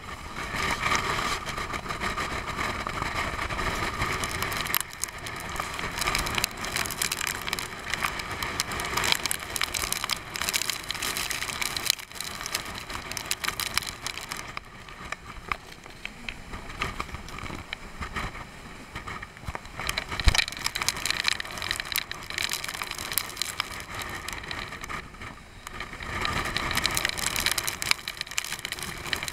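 Storm noise heard from behind a tanker's bridge window in heavy seas: a steady rushing of wind and sea with many sharp ticks and knocks as spray and rain strike the glass, swelling and easing as the ship pitches.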